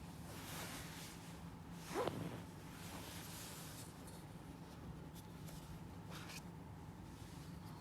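Handling and opening the packaging of an iPhone 12 Pro box: light scraping and rustling, with a soft knock about two seconds in and a few light clicks later.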